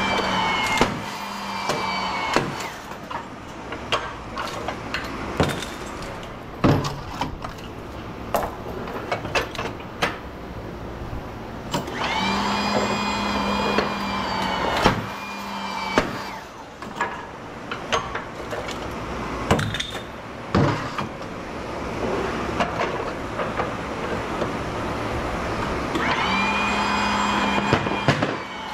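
Welds on 1000-watt HID light transformers breaking with many sharp, loud cracks and knocks, like a gun going off. A motor-driven tool runs in three short spells of a few seconds, its pitch rising as it starts.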